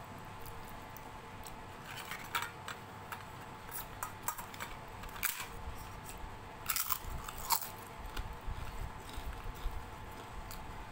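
Close-up eating sounds: crunchy bites and chewing, coming in sharp clusters about two, five and seven seconds in, with softer chewing after, as fingers mix dalia khichdi on a steel plate.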